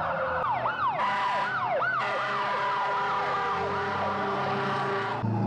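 Fire-engine siren wailing in fast, repeated sweeps up and down, with several siren tones overlapping. A low steady rumble comes in near the end.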